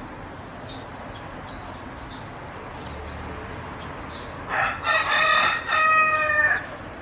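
A rooster crowing once: a drawn-out crow of about two seconds in a few joined parts, starting past the middle, over a faint steady background hiss.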